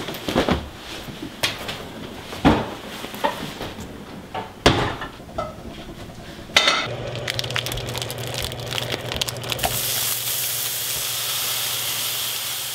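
Kitchen clatter of a pan and utensils with a few sharp knocks, then hot dogs sizzling in a frying pan on a gas stove over a steady low hum, the sizzle growing louder for the last few seconds.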